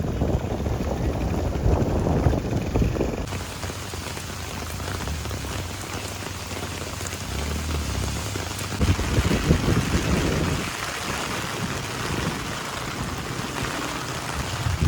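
Rain falling steadily, with low rumbling buffets in the first few seconds and again about nine seconds in.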